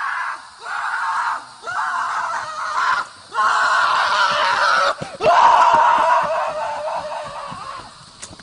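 A horse giving a run of harsh, screaming cries, five in a row, each one to two seconds long with short breaks between. The last cry is the longest and fades away near the end.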